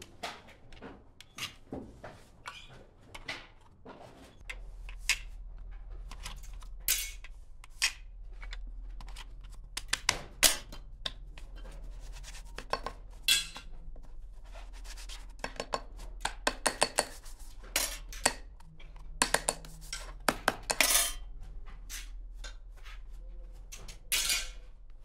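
Small metal parts clinking and tapping as they are handled, in quick irregular strokes, over a low steady hum that starts about four seconds in.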